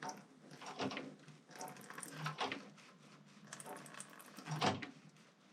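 Scattered light clicks and a few soft knocks of hand work on a motorcycle's brake while it is being bled, as the bleeder bolt is opened and tightened and the brake is pumped.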